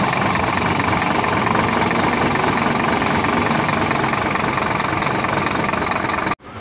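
Scania P310 fire truck's diesel engine idling steadily, loud and even, broken off abruptly near the end.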